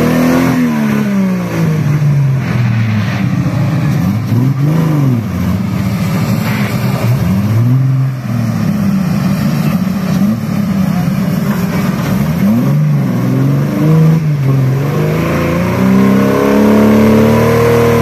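Off-road buggy's engine revving up and down again and again under load as it climbs out of a deep mud trench, then held at high revs near the end.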